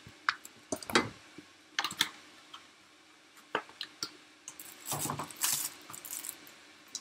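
Kitchen items being handled and set down on a counter: scattered sharp clicks and knocks, then a longer stretch of clatter about five seconds in.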